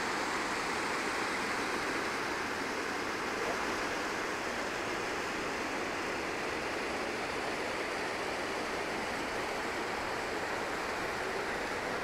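Krka river waterfalls: water rushing steadily over the tiered travertine cascades.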